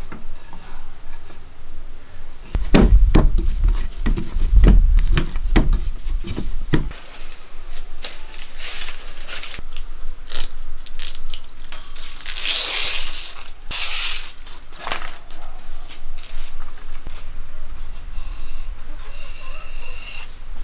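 A hand kneads and squeezes a coarse, sticky dough in a clay pot, with a run of soft thuds against the pot. Then a fresh green leaf crackles and tears as a knife strips a thin stem from it, with a louder rasping rip about halfway through.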